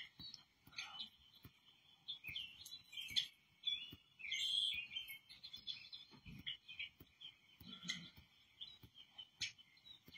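Many short bird chirps and calls, one after another, played through a television's speakers from a bird video.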